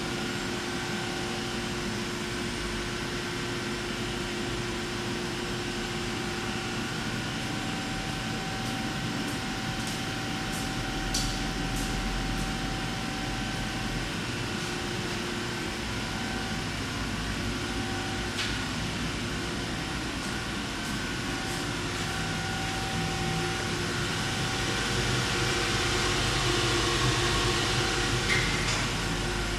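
Steady mechanical hum with several held tones from a powered-up Eurotech 730-SLY CNC turning center standing idle, not cutting. A few faint clicks and taps come about a third of the way in, just past halfway, and near the end.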